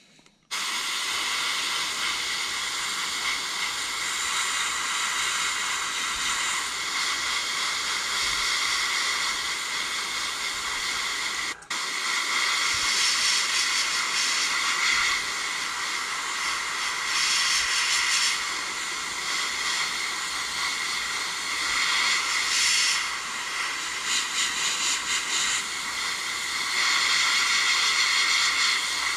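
Airbrush spraying paint in a steady hiss of compressed air, with a brief cut-off about twelve seconds in and the flow swelling and easing later on. It is laying light coats of moss green over a stencil, kept thin so the paint doesn't flood and run under the stencil.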